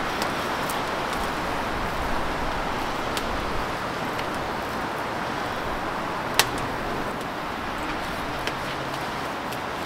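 Oak wood fire burning for a grill: a steady hiss with scattered sharp crackles, one loud pop a little past halfway.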